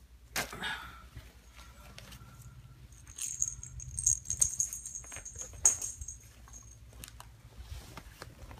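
A small jingle bell on a kitten toy jingling in quick shakes for about four seconds from around three seconds in, among light taps and rustles of kittens playing. A brief kitten cry just after the start.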